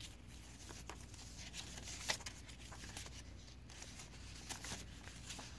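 Paper rustling and pages of a handmade journal turning, with soft scattered handling taps as an insert is pulled from a pocket and a page is flipped. A faint steady low hum lies underneath.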